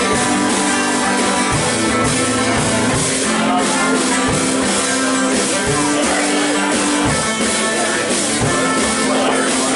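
Live instrumental passage: acoustic guitar played over a drum kit, with no singing.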